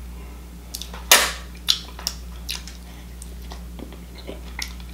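Close-up mouth sounds of someone tasting food: a handful of short clicks and lip smacks, the loudest about a second in, over a low steady hum.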